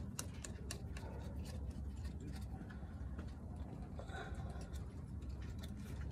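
Scattered light clicks and ticks, thickest in the first second, as a bolt is threaded in by hand to hold a new vehicle speed sensor on top of the rear differential, over a low steady rumble.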